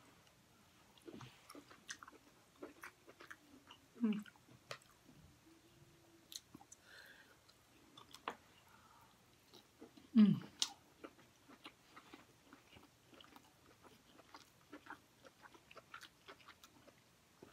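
Close chewing and wet mouth sounds of someone eating soft crab meat dipped in seafood-boil sauce, with many small smacks and clicks. There are two louder mouth sounds, about four seconds and about ten seconds in.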